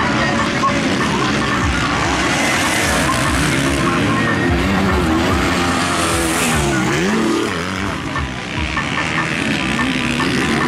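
Motocross bike engines revving hard as the bikes race round the dirt track, the pitch rising and falling with throttle and gear changes. About seven seconds in, one engine drops in pitch and then climbs again.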